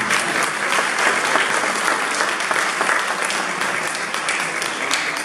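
Audience applauding: dense, even clapping from a crowd.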